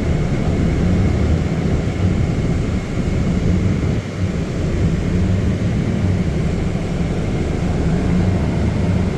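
Inside a city bus under way: a steady low rumble of engine and road noise.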